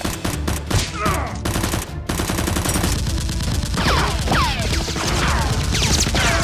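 Rapid automatic gunfire sound effects dubbed over Nerf blasters being fired: continuous volleys of closely spaced shots. In the second half come several falling whistling whizzes.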